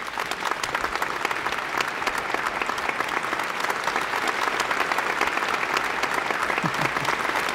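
Audience applause: many hands clapping, building over the first second and then holding steady.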